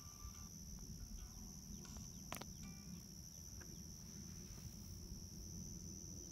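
Crickets chirping in a steady, high-pitched evening chorus, over a low rumble, with a single sharp click about two and a half seconds in.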